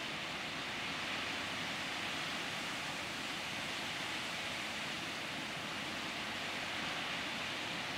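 Steady hiss of rain falling during a night thunderstorm, even and unbroken, with no thunder.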